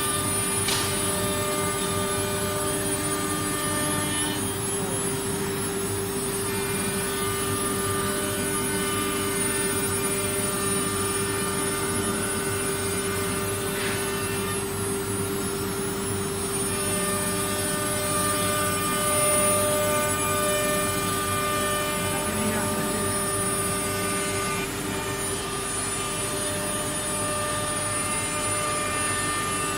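Wood CNC router running, its spindle giving a steady whine with a constant tone, while fainter machine tones come and go as the gantry moves.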